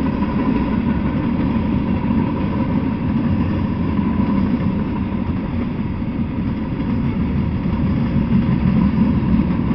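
Freight train rolling past: tank cars, covered hoppers and a gondola, with a steady low rumble of steel wheels on the rails.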